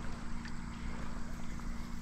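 Flowing stream water rippling and sloshing, with a steady low rumble underneath.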